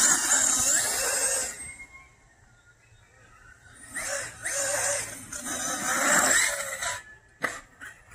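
Electric HPI Vorza 1/8-scale RC buggy running on a 6S LiPo over dirt: two bursts of motor and tyre noise, the second one longer, with a quiet gap of about two seconds between them.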